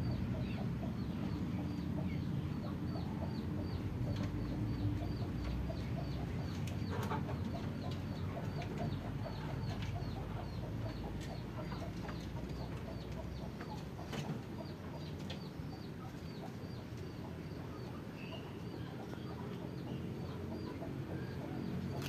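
Farmyard ambience with chickens clucking, over a steady run of short high chirps about three a second.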